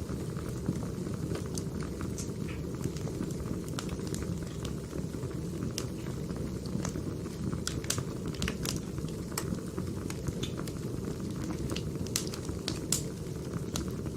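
Firewood burning: a steady low rumble of the fire with irregular sharp crackles and pops from the logs.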